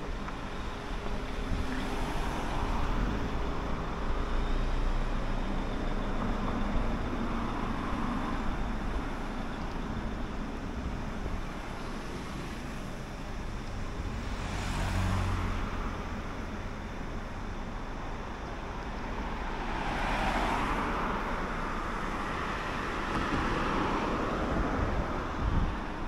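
Road traffic noise: a continuous hum of cars with a low rumble, and several passing vehicles that swell and fade, one every few seconds.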